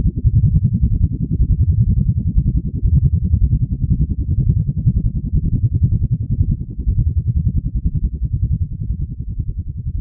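A loud, fluttering low rumble with nothing high-pitched in it, fading out at the end.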